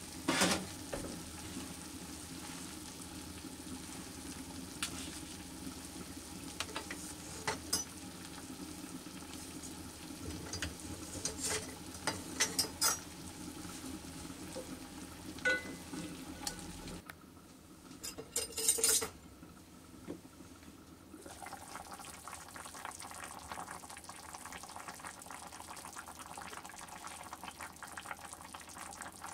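Food sizzling in a Le Creuset enameled cast-iron pot on a gas burner while a wooden spoon stirs it, with scattered clicks and knocks of the spoon against the pot. A loud knock comes about half a second in.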